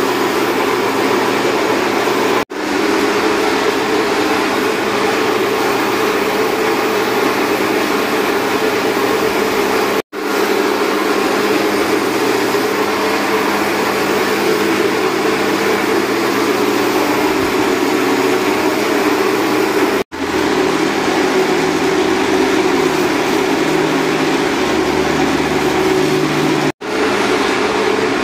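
Pressure washer running steadily, its water jet hissing onto a plastic AC air filter; the sound breaks off for an instant four times.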